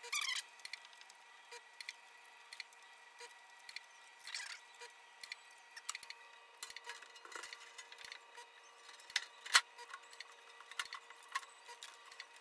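Scattered light clicks and taps of parts and screws being handled as a Lisa dental autoclave is reassembled, with a short scrape about four seconds in and one sharp knock about nine and a half seconds in.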